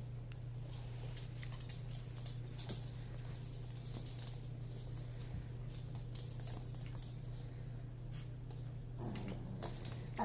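Small puppies' claws pattering and ticking on a laminate floor as they play, over a steady low hum. A short vocal sound comes near the end.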